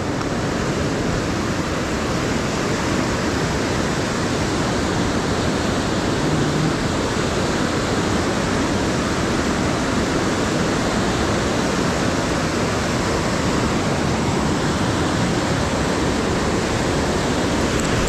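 Steady rush of fast white-water rapids on the Seti River pouring around boulders.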